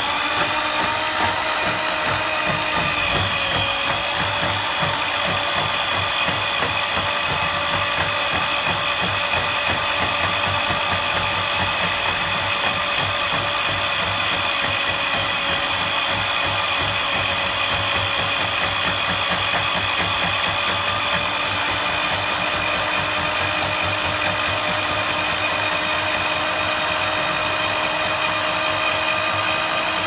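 Ridgid K-45 drum drain snake's motor running with a steady whine, spinning the cable in forward while the cable is drawn back into the drum after clearing a clogged washing-machine drain line.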